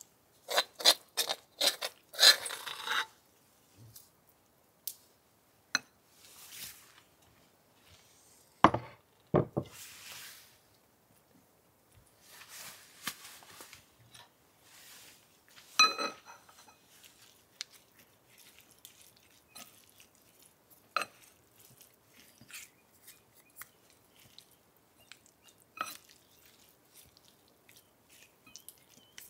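Spoon and chopsticks clinking, tapping and scraping against a ceramic bowl while greens are mixed with a sesame-miso dressing. A quick run of clinks comes in the first three seconds and two heavier knocks about nine seconds in, then scattered light taps with soft stirring noise between them.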